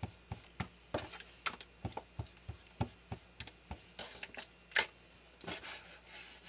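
Kitchen knife cutting squid fillets on a plastic cutting board: the blade taps the board in a quick, uneven run of light knocks, about two to three a second, with a few softer scraping sounds in the second half.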